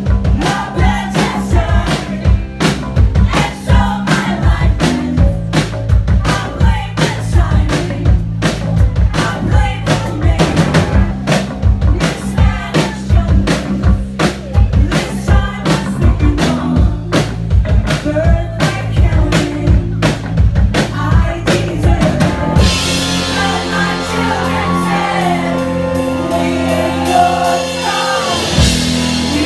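Live band music with singing over a fast, steady drum-kit beat and bass. About two-thirds of the way through the drums stop and held chords carry on under the voice.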